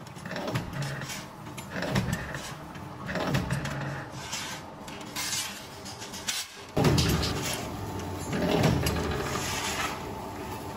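Sheet steel scraping and clattering as it is slid and handled on a steel workbench, over a steady low machine hum.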